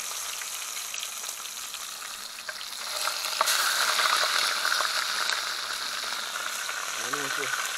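Fish frying in hot cooking oil in an iron pot, a steady sizzle as pieces are lowered in, growing louder about three seconds in.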